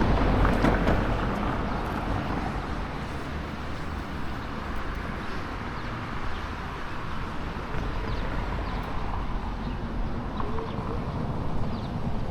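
Outdoor lakeside street ambience: a vehicle's low rumble fading away over the first couple of seconds, then a steady background hum with faint short high chirps here and there.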